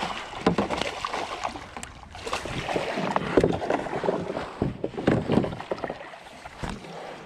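A hooked bass thrashing and splashing at the surface beside a kayak, then a landing net swept through the water to scoop it. Irregular splashes, busiest in the first five seconds, die down near the end.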